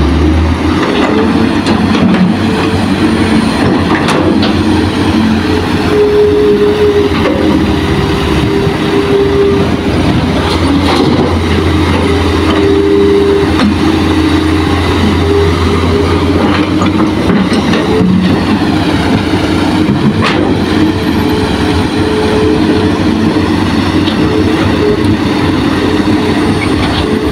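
Diesel engines of a Hitachi excavator and a dump truck running steadily as the excavator loads soil into the truck bed, with a few sharp knocks over the engine noise.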